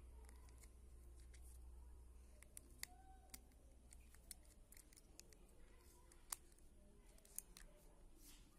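Small, sharp clicks and taps of the parts of a Sony compact camera's body being handled and pressed into place by hand, scattered irregularly, with a few louder clicks around three, six and seven seconds in, over a faint low hum.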